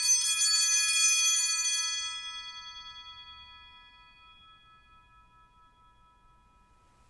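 Altar bells rung at the elevation of the consecrated host: a shaken, shimmering jingle for about two seconds, then the bells ring on and slowly fade away.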